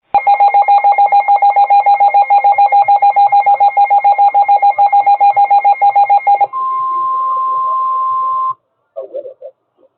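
Emergency alert signal: a loud, rapidly pulsing electronic tone, about nine pulses a second for some six seconds, then one steady single tone for about two seconds that cuts off suddenly. This is the attention signal that opens a broadcast emergency alert, and faint voice follows.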